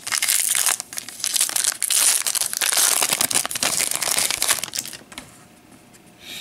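Foil wrapper of a 2013 Panini Prizm baseball card pack crinkling loudly as it is torn open and the cards are pulled out; the crinkling dies down after about five seconds.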